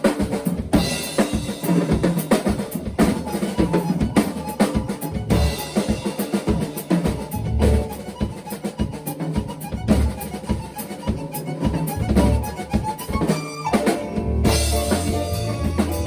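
Live band playing, with the drum kit to the fore: bass drum and snare hits in a steady beat over bass and other instruments. A brief break near the end, then the band comes back in fuller.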